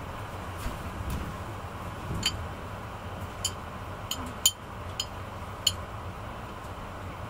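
Steady low rumble inside the carriage of a Renfe AVE S-102 (Talgo 350) high-speed train moving slowly, with a faint steady hum. Over it come about half a dozen sharp, light clicks, the loudest about four and a half seconds in.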